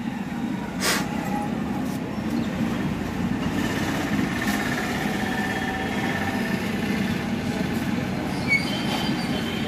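Steady rumble of a running vehicle, with one sharp click about a second in.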